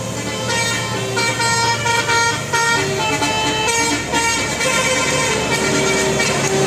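Bus telolet horn, a multi-tone air horn, playing a quick tune of short notes that step up and down in pitch, over the bus engine running.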